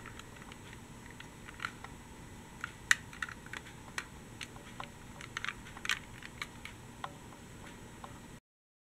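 Light, irregular clicks and taps of a small toy tram being handled among other toy vehicles in a plastic box, a few of them sharper. The sound cuts off to silence near the end.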